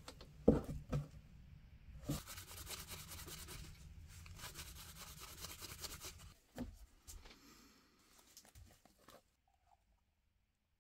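A few sharp knocks, then about four seconds of quick rubbing strokes on a workpiece, like hand sanding, followed by faint handling sounds.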